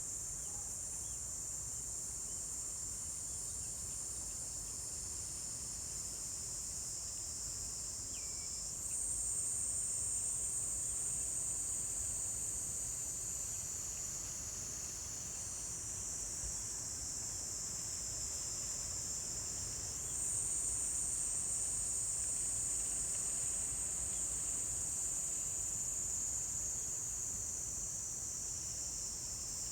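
Insects trilling together in a steady, high, continuous shrill chorus. It gets louder suddenly about nine seconds in, eases back around fifteen seconds, and rises again about twenty seconds in.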